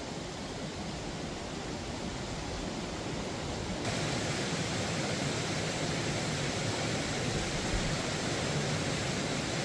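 Steady rushing noise with no distinct events, a little louder and brighter from about four seconds in.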